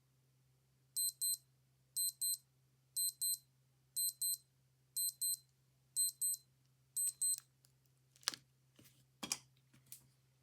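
Old digital watch alarm beeping in pairs of short, high beeps, one pair a second, seven times over, then stopping. A few sharp clicks and taps follow near the end.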